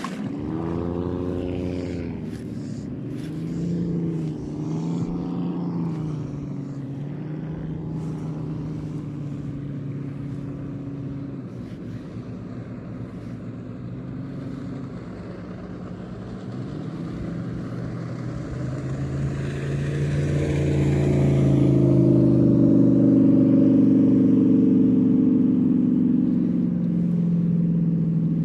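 Jet boat engines running past on the river, one after another. The loudest passes close about twenty seconds in.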